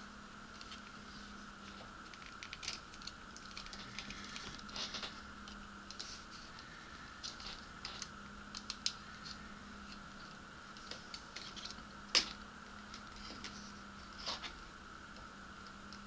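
Small scattered clicks, taps and rustles of fingers working thin wires around the terminals of a metal model-kit light-harness channel, with one sharper click about twelve seconds in.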